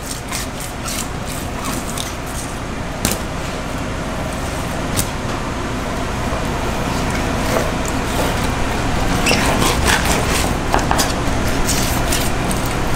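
Steady air-conditioning noise that grows slowly louder, with scattered clicks and scrapes of a fillet knife on a plastic cutting board as a snapper is filleted.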